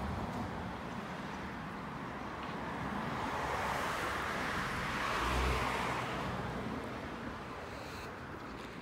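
A road vehicle passing by: its noise swells to a peak with a low rumble about five seconds in, then fades away.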